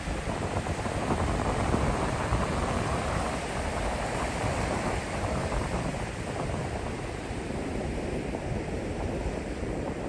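Ocean surf washing steadily onto a sandy beach, with wind rumbling on the microphone.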